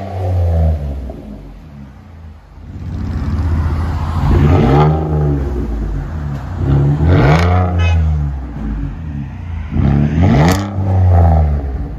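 2018 Ford Taurus 3.5L V6 with a dual exhaust, fitted with a Flowmaster Outlaw in place of the resonator and with its rear mufflers deleted, idling and revved up three times, each rev rising and dropping back to idle. Each rev is loud.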